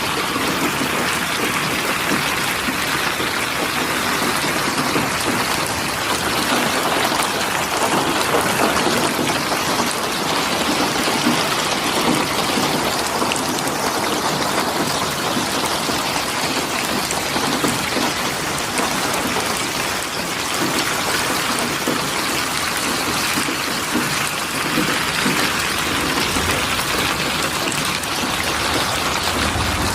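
Steady rain falling, with dense patter of drops on a surface.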